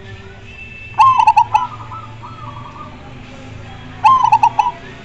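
Zebra dove (perkutut) cooing: two loud bursts of quick staccato coos about three seconds apart.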